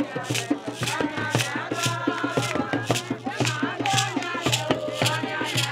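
Music with a steady beat: a shaker rattles on the beat over a pulsing bass line, with a melodic line of voice or instrument above.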